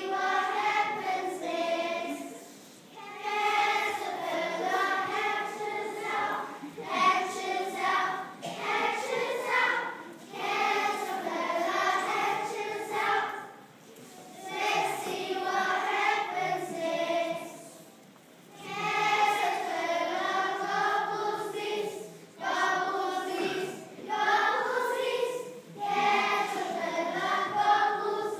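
A class of eight-year-old children singing together as a group, in phrases of a few seconds with short pauses between.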